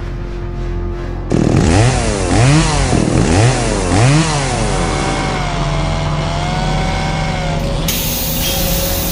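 Chainsaw revving in four quick rising bursts about a second apart, then running steadily, over a low steady engine hum.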